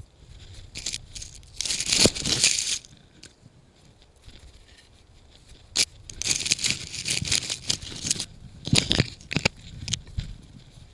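Bursts of crunching and rustling with a few sharp snaps, from handling a fallen pine tree and its branches in icy snow. The loudest burst comes about two seconds in, and a longer one follows a few seconds later.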